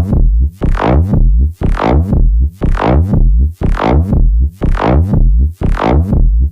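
Electronic dance music track built in a music-making app: heavy synth bass and sharp synth stabs repeating about twice a second, with a brief drop in level once a second.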